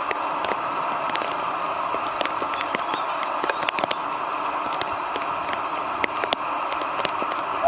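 GWR 6400 class pannier tank locomotive standing in steam, with a steady hiss of escaping steam and scattered sharp crackling clicks.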